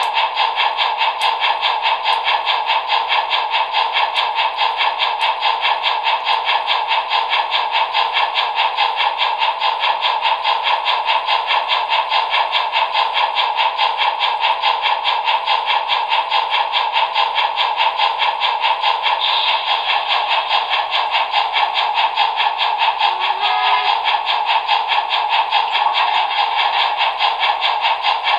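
Sound decoder of a Trix Union Pacific Challenger model steam locomotive playing steam chuffs through its small speaker, a fast, even rhythm that runs steadily.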